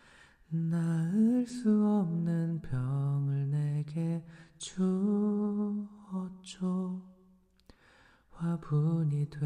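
A man singing a slow Korean ballad softly and unaccompanied, close to the microphone, in long held phrases with a short pause near the end.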